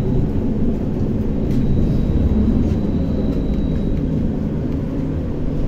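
Trolleybus in motion, heard from inside the cabin: a steady low rumble from the road and running gear, with a faint high whine for about two seconds in the middle.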